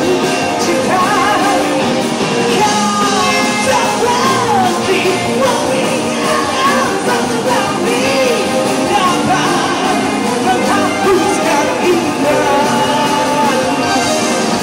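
Rock song with a singer's voice over a full band, loud and continuous.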